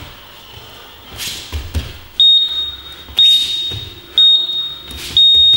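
Digital interval timer beeping four times about a second apart, the last beep longer, counting down the end of a work round. Soft thuds of bare hands and feet on the gym mats come before the beeps.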